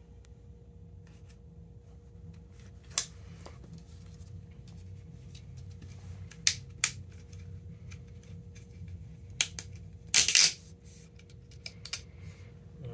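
Scattered sharp plastic clicks and knocks as grommet strips are pried and pulled off a tennis racket frame with an awl, with a louder quick cluster of clacks about ten seconds in.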